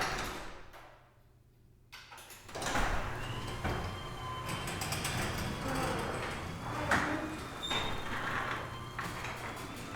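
Sectional garage door running along its tracks with a continuous rattle and scattered clunks. The sound dies away in the first second, goes quiet, then the door starts moving again about two and a half seconds in.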